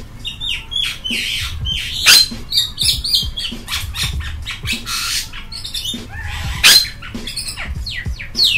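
A bird squawking and chattering in quick, short calls, with two louder, sharper squawks about two seconds in and near the end.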